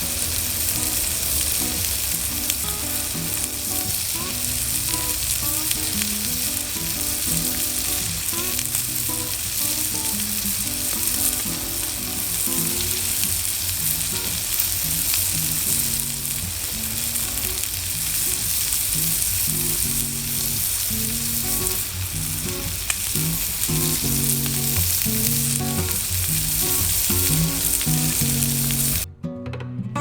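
Steak frying on a cast iron Nanbu ironware steak plate, a dense, steady sizzle, with plucked guitar music underneath. The sizzle cuts off suddenly about a second before the end, leaving only the music.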